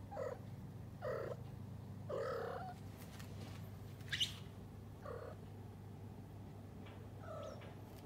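Domestic cats chattering at a bird through a window: a series of short chirps and trills, about six in all, with one higher, sharper chirp about four seconds in.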